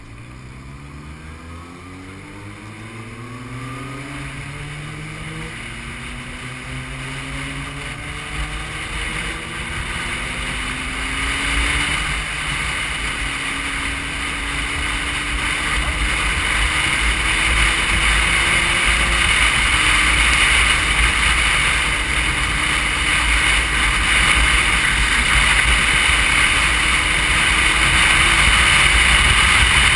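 Motorcycle engine accelerating up through the gears, its pitch climbing and dropping back at each of several shifts, with wind noise on the microphone building as the bike gathers speed.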